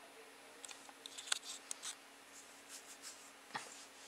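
Faint handling noise from a handheld camcorder being moved about: scattered small clicks and rustles of hands and plastic casing, starting about half a second in.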